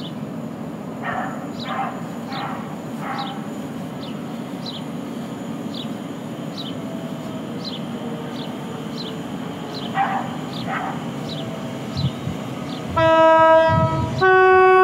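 Class 345 electric multiple unit sounding its two-tone horn as it approaches the platform: two long blasts near the end, the second a little higher-pitched than the first. A steady low rumble runs underneath.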